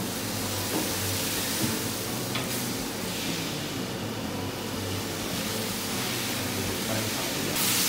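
Vegetables, shrimp and meat sizzling steadily in a paella pan as they are stir-fried with a wooden spatula, with a few light knocks of the spatula against the pan.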